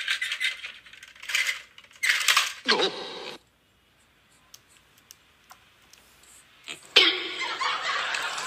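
Battery-powered toy dinosaur clattering: rapid plastic clicking in short spurts, then near quiet. A steady rushing noise comes in for the last second and a half.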